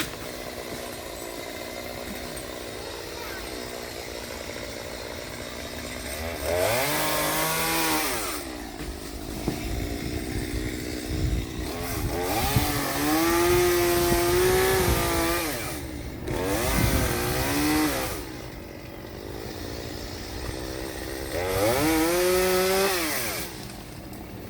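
Chainsaw idling, then revved up four times for about two to three seconds each, its pitch climbing, holding and dropping back to idle.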